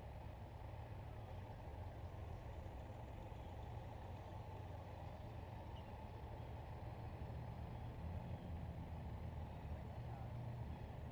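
Honda Gold Wing motorcycles running at low speed in the distance: a steady low engine rumble that swells slightly in the second half.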